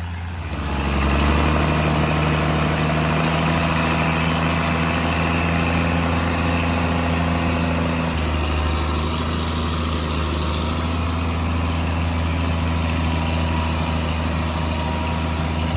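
Timberjack log skidder's diesel engine running steadily under load. It gets louder about a second in, and its note shifts about eight seconds in.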